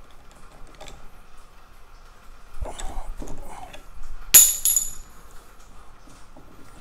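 Steel gear puller being fitted and worked over a small gear on a motor shaft: light metal clicks and knocks, then a sharp, ringing metal clink a little past four seconds in, with a smaller clink just after.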